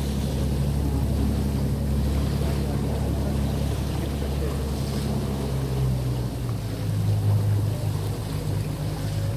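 Motorboat engine running steadily, its note changing about six and a half seconds in, with water and wind noise around it.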